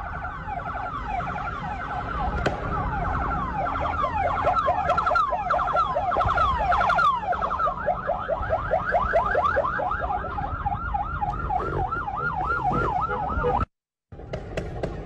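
Sirens of a bodyguard convoy of SUVs wailing in fast rising-and-falling yelps, several overlapping at first and then settling into one quick, even warble. Low road and engine rumble runs underneath. The sound cuts out for a split second near the end and then resumes.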